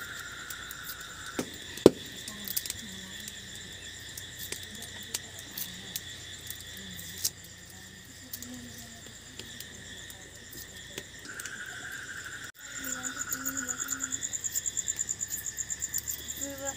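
Steady chorus of insects trilling at several high pitches, with a faster pulsing trill that comes in about three-quarters of the way through. Small scattered clicks and crackles of dry garlic skins being peeled by hand run over it, with one sharp click about two seconds in.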